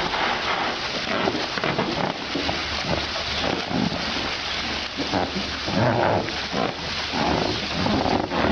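An animal making a run of short vocal calls over background noise, louder in the second half.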